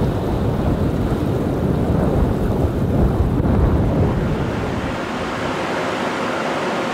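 Loud, steady rush of wind and sea on an open ship's deck: waves breaking and churning along the hull, with wind buffeting the microphone.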